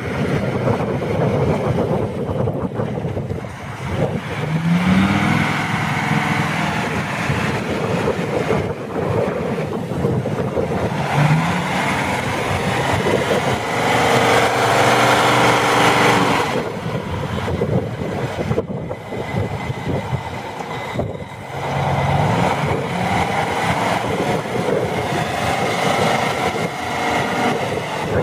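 Tatra heavy truck's diesel engine running under load as it drives over muddy ground, revving up three times with a rising pitch, and loudest for a few seconds around the middle.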